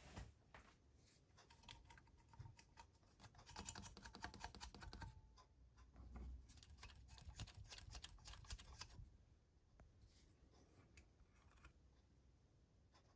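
Faint rapid clicking of a ratchet wrench doing up cylinder head nuts, in two main runs beginning about three and a half and six seconds in.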